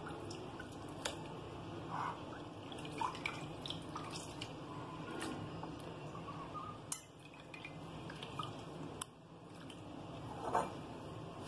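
Wet pieces of mutton liver lifted by hand out of a bowl of milk and water and put into a glass bowl: dripping and small splashes, with scattered light clicks against the glass.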